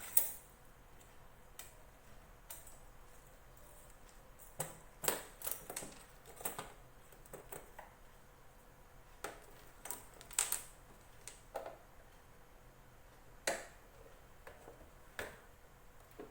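Scattered small clicks and light knocks of hands and tools working on the casing of a hand-press plastic bag sealer, prying at its heater part to open it, with the sharpest click right at the start.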